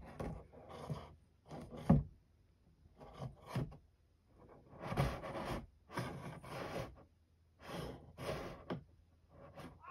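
A cat toy's strap dragged and rubbed against a cardboard box as a cat paws at it: about eight short, scratchy scraping spells with brief pauses between.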